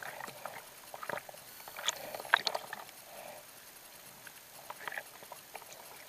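Small waves lapping and splashing against a waterproof action-camera housing held at the water's surface, with a few sharper slaps, the loudest about two and two-and-a-half seconds in.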